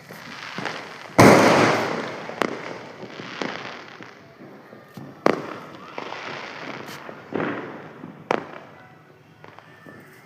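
Fireworks going off in an irregular series of sharp bangs. The biggest comes about a second in and dies away over a couple of seconds, followed by about half a dozen smaller cracks.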